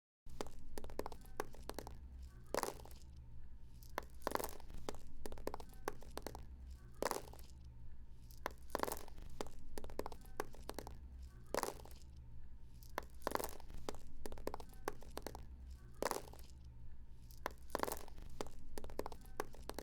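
Small stones falling and knocking against each other: a steady patter of clicks with a louder clatter every second or two, over a faint low hum.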